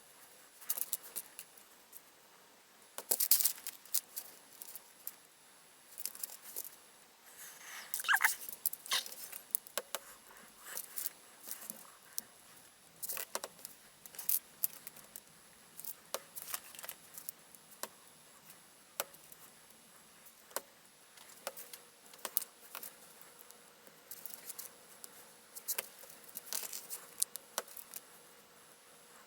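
LEGO plastic bricks clicking and rattling as they are picked out and pressed together, in irregular sharp clicks with a busier cluster about three seconds in and a brief squeak about eight seconds in.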